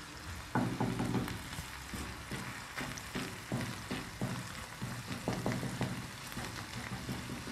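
Chopped onion and crushed garlic frying slowly in oil in a steel frying pan, a gentle sizzle, with a wooden spatula scraping and knocking against the pan in short irregular strokes as it stirs.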